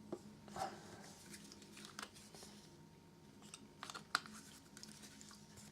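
Light handling noises at a worktable: a few scattered clicks and taps with soft crinkling, over a faint steady hum.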